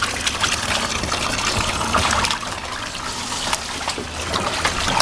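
Water from a garden hose trickling and splashing into a wading pool, with many small splashes.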